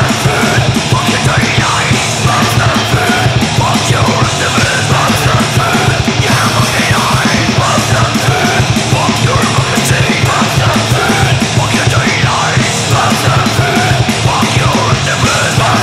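Loud, fast black/thrash metal with distorted guitars, driving drums and harsh shouted vocals, continuous throughout.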